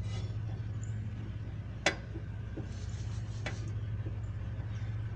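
A few sharp metal clicks, the loudest about two seconds in and a weaker one about a second and a half later, as a greased wheel bearing is pressed into its hub, over a steady low hum.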